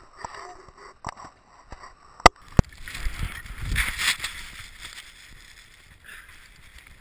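A skier's crash heard through a body- or helmet-mounted camera. A few sharp knocks come in the first two and a half seconds, the loudest just over two seconds in. Then a rushing, scraping noise of wind and snow on the camera, with a low rumble, lasts a couple of seconds and fades away.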